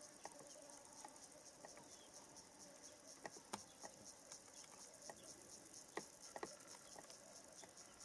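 Faint, high-pitched insect chirping at about five pulses a second, with a few sharp snaps and clicks of leaves and twigs as a nyala browses in the bush, the loudest about three and a half and six seconds in.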